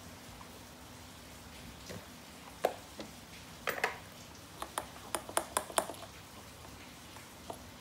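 A quick run of light, sharp clicks and taps from small hard objects handled on a work surface, over a steady faint hiss, with the clicks bunched together in the middle.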